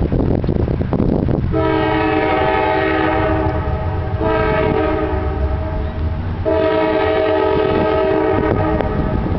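A CSX GE C40-8W freight locomotive's air horn sounds three blasts, a long one, a shorter one and another long one, each a chord of several steady notes, over the low rumble of the train.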